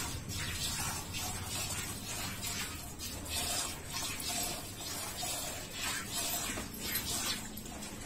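Milk squirting from a cow's teats into a steel bucket during hand milking: short hissing squirts in a quick, even rhythm, about two a second.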